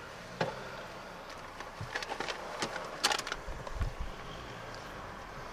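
Car cabin sound of a taxi pulling away: a steady low engine and road rumble, with a cluster of irregular clicks and knocks around the middle and a few low thumps just after.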